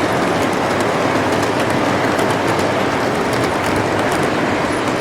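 Model train running on a layout track: a steady rumble of wheels on rails with light irregular clicking.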